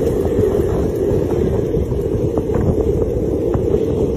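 Wind buffeting the microphone as it moves quickly along the road, a steady low rumble.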